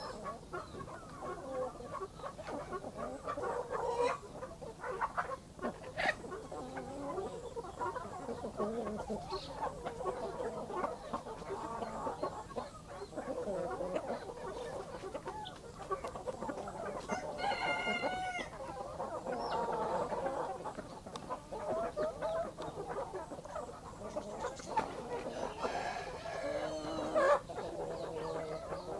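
Backyard hens and a rooster clucking and calling continually. A louder, ringing call stands out about seventeen seconds in, and a rooster crows near the end, falling in pitch as it finishes.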